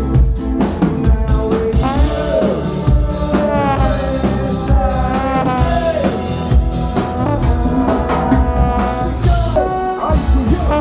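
Live ska-dub band playing loudly: a steady drum kit beat under a singing voice, with brass.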